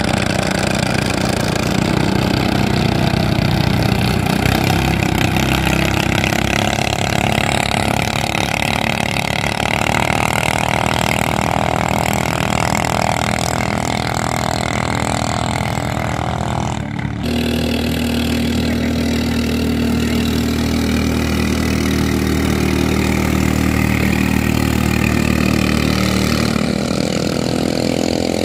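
Klotok drag-race boat engines running hard, a loud, continuous engine note. The note changes abruptly about halfway through.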